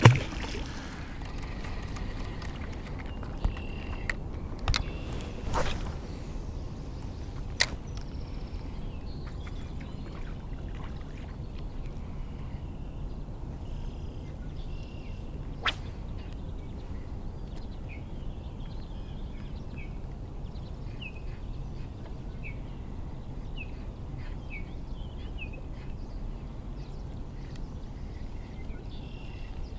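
Fishing rod and reel being cast and worked: a few sharp clicks and a swish in the first eight seconds and one more click a little past the middle, over a steady low background hiss. Small birds chirp repeatedly through the second half.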